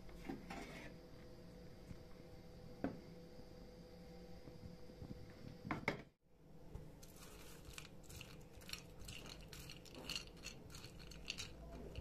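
Faint kitchen clatter of dishes and utensils. A few isolated small taps come first, then from about six seconds in a quick run of light clicks and rattles.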